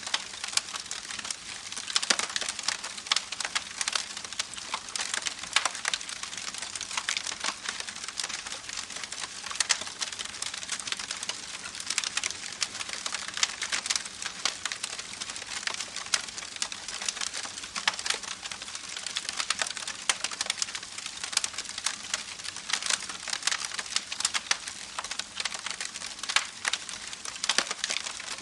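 Campfire crackling with many irregular sharp pops and snaps, over a steady rushing hiss of a babbling creek.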